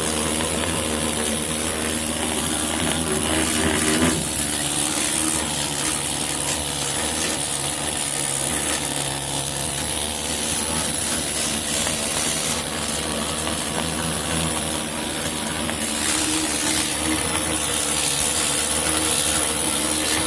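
Needle scaler running steadily, its pins hammering dirt out of a hole in a truck's steel body to clean it before a patch is welded in.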